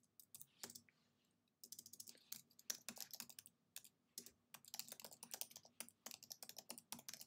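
Faint typing on a computer keyboard: a run of quick keystrokes, with a short pause about a second in.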